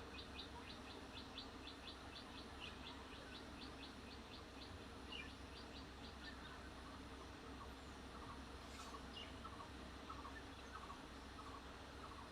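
Faint bird calls: a rapid series of short high chirps, about four a second, that stops about halfway through. Quieter, lower chirps follow, over a faint steady low hum.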